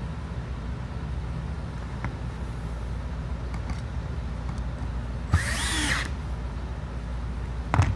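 Power drill with a square-drive bit briefly driving a screw about five seconds in, its whine shifting in pitch as it runs, over a steady low hum. A sharp click comes near the end.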